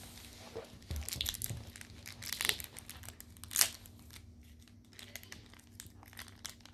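Toy packaging crinkling and rustling as it is handled, in irregular crackles, the loudest about two and a half and three and a half seconds in.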